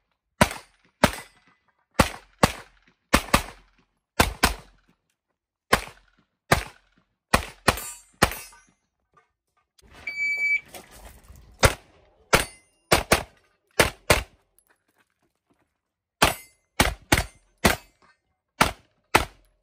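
A compensated CZ75 TS Czechmate pistol firing 9mm major at a fast pace, mostly in quick double shots a few tenths of a second apart, with short breaks between groups of targets. A brief steady high tone sounds about halfway through.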